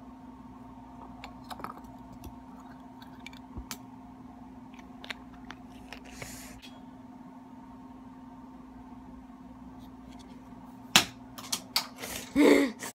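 Small clicks and taps from objects being handled over a steady electrical hum, ending with a few loud sharp knocks and a brief pitched, voice-like sound before the audio cuts off suddenly.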